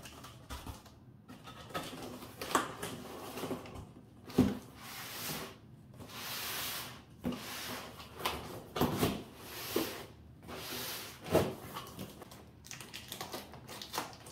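Corrugated cardboard box lid being lowered and slid down over its box base: cardboard scraping and rubbing on cardboard in several swishes, with dull knocks as the lid is pressed into place.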